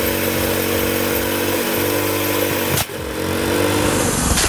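Chainsaw engine running steadily at speed, with an abrupt break a little under three seconds in before it carries on.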